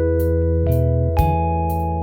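Background music: held keyboard chords with new notes coming in twice, over a light regular beat.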